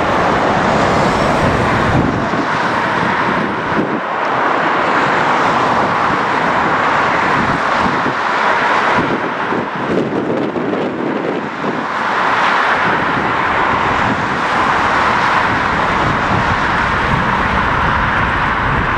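Jet engine noise from a landing British Airways Boeing 777-200ER with Rolls-Royce Trent engines, heard as a steady rushing roar through touchdown and rollout that swells and eases several times. Wind buffets the microphone.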